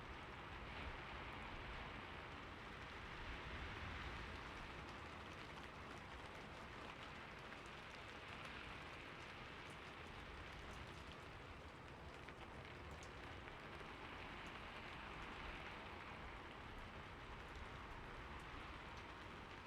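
Steady rain falling on a roof: an even hiss of rainfall with scattered fainter drop ticks.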